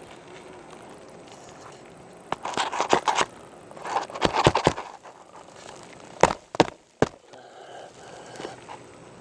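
Hammer blows driving a roofing nail through an asphalt shingle: three sharp knocks in quick succession past the middle, after two spells of crackling and clicking as the shingle is handled.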